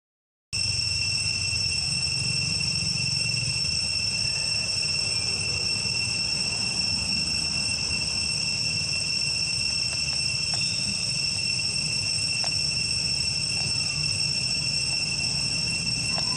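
Insects droning outdoors: a steady, continuous high buzz that starts about half a second in and holds unchanged, with a faint low rumble beneath.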